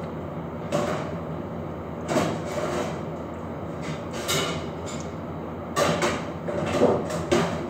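Irregular knocks and clatter of things being handled at a countertop oven, about six in all, over a steady low hum.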